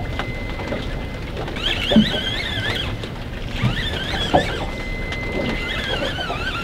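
Fishing reel squealing in three wavering bursts of about a second each while a fish is cranked up on a heavily bent rod, over a steady low rumble from the boat.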